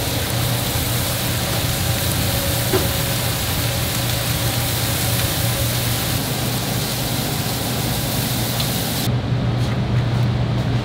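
Steady sizzling hiss of food cooking, over a low steady hum; the hiss drops away sharply about nine seconds in.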